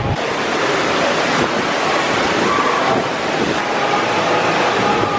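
Steady rushing water from the water-slide flumes and water features, a dense, even hiss with no breaks.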